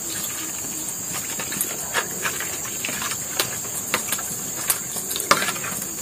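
Scattered light clinks and taps of a metal spoon in a small wok as water is poured in and the fish curry is stirred, over a steady high chirring of insects.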